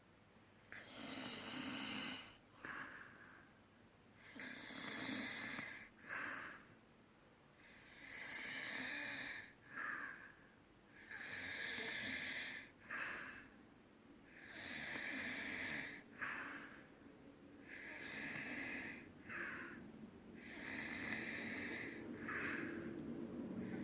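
Snoring: a long, noisy snore breath about every three seconds, seven in all, each followed by a short second breath sound.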